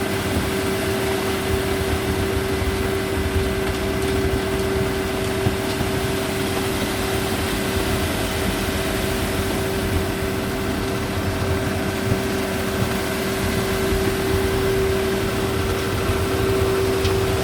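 A concrete mixer's engine running steadily under load, with a constant whine over a rumble, while concrete is dispensed into the holes.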